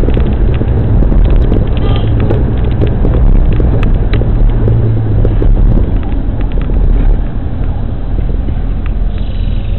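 Steady low road and engine rumble heard inside a moving car, with scattered small clicks and rattles; it eases a little about seven seconds in.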